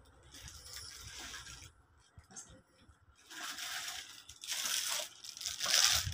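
Paper gift bag and plastic wrapping rustling and crinkling as gifts are pulled out of the bag, in several bursts that grow louder in the second half.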